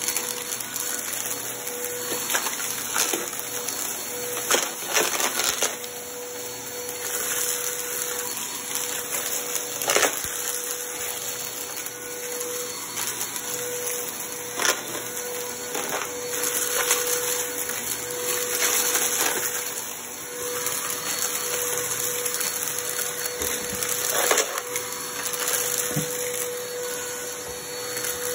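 Upright bagless vacuum cleaner running over carpet: a steady motor whine with a hiss of rushing air. Irregular sharp clicks and crackles sound as scattered dry crumbs rattle up into the nozzle.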